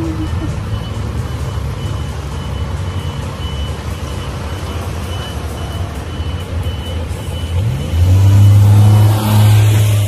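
Steady motor-traffic rumble with a faint, evenly repeating high beep like a vehicle's reversing alarm. About seven and a half seconds in, a vehicle engine rises in pitch and then runs loudly close by.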